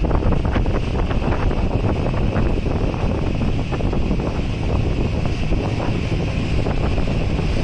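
Wind buffeting the microphone aboard an outrigger boat: a loud, steady rumble with many short crackles.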